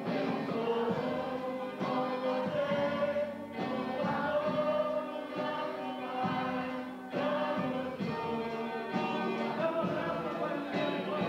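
Church singing: men's and women's voices singing a gospel hymn together in phrases a few seconds long, led by a small vocal group at a microphone, with instrumental accompaniment underneath.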